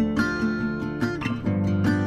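Instrumental background music with guitar, a run of pitched notes changing every fraction of a second.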